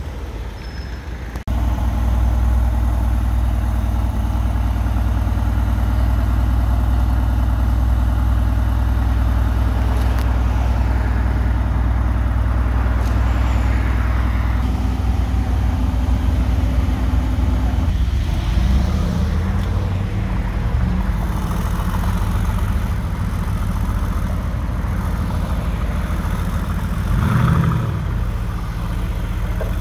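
Mercedes-AMG GT's twin-turbo V8 idling steadily and loudly, close behind the exhaust. Past the middle the note changes and the revs rise briefly a few times, with a louder rise near the end as the car pulls away.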